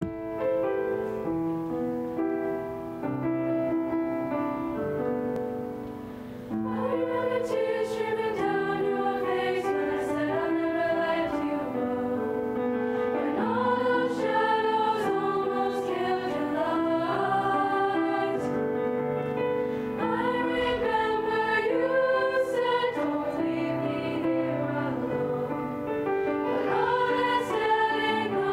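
Piano introduction of steady chords for about six seconds, then a middle-school chorus of mostly girls' voices comes in singing together over the piano accompaniment.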